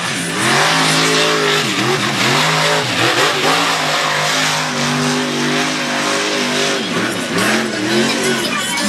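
Chevy Gone Mad mud truck's engine running hard through a mud pit at high throttle, its pitch rising and falling several times as the throttle is worked.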